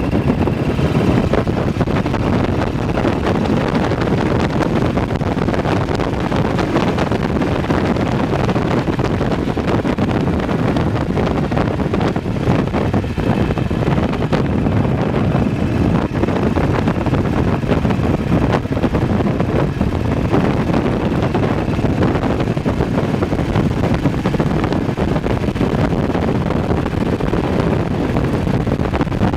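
BSA WM20 motorcycle's single-cylinder side-valve engine running steadily at road speed, heard from the rider's seat, mixed with heavy wind rush on the microphone.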